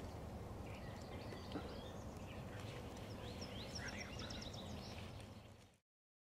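Faint outdoor ambience: small birds chirp now and then over a steady low hiss, with a quick run of high notes about four seconds in. The sound cuts off abruptly near the end.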